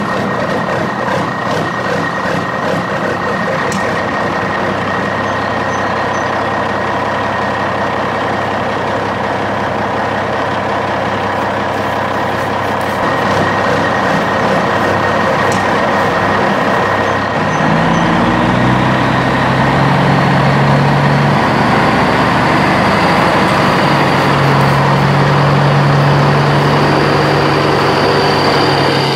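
Recorded truck sound effects: a heavy truck's engine running steadily. A little past halfway a deeper engine rumble with a low hum comes in, and the sound gets a little louder.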